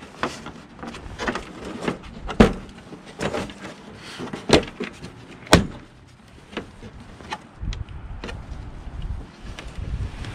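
Plastic belt cover of a single-stage snowblower being pried and pulled off by hand: a run of sharp plastic clicks and knocks, the loudest about two and a half, four and a half and five and a half seconds in.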